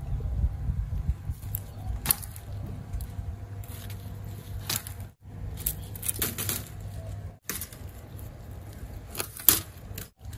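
Bitter melon vine leaves rustling and stems snapping as shoots are picked by hand: a series of sharp crackles over a low rumble.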